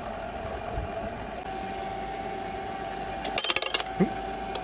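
Lapidary flat lap running with a steady hum while a quahog shell piece is ground on its diamond pad. About three and a half seconds in comes a quick burst of rattling clicks: the spinning pad whips the shell out of the fingers and it clatters against the lap's splash pan.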